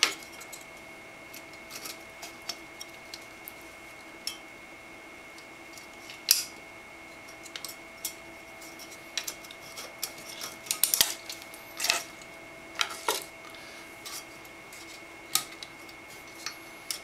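Black fan clips being unhooked from a dual-tower CPU cooler's aluminium fin stacks and the fan lifted off. Scattered sharp clicks and clinks, with a cluster of them about eleven to thirteen seconds in.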